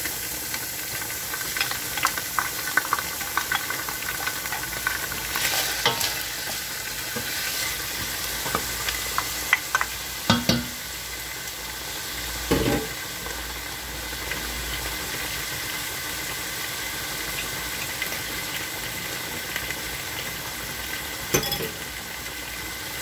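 Olive oil sizzling steadily in a pot around a whole chicken and chopped onion, with scattered small pops and spits. Two louder knocks about halfway through.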